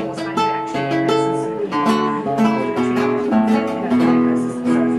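Acoustic guitar music: strummed and plucked chords in a steady rhythm.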